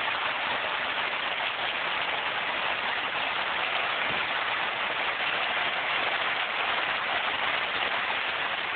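Heavy typhoon rain falling steadily: a dense, even hiss with no let-up.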